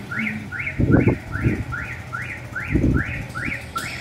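Road and wind noise on a moving motorbike, with low gusts. Over it a high chirp rises and falls, repeating evenly about two and a half times a second.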